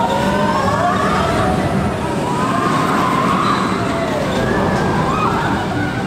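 Several voices crying out, their pitch gliding up and down and overlapping, over a steady rushing noise.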